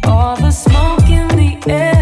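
Background music with a steady, heavy beat and deep sliding bass.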